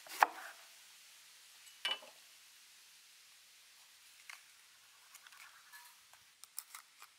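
A cleaver chops through a bell pepper onto a wooden cutting board with a sharp knock just after the start, and a second knock comes about two seconds in. Then come small crisp snaps and crackles as the seed core is pulled out of a bell pepper by hand.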